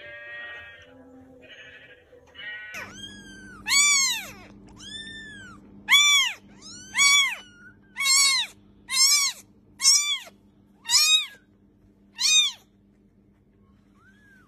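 Newborn kitten mewing: about nine high, thin mews that rise and fall, roughly one a second, starting about three seconds in, over a steady low hum.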